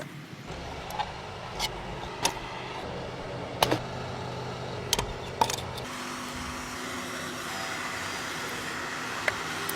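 A steady low mechanical hum that shifts to a higher steady tone about six seconds in, with a series of sharp clicks and knocks, most of them in the first half.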